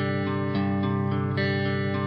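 Background music: a slow guitar-led song playing held notes and chords, with no vocal line at this point.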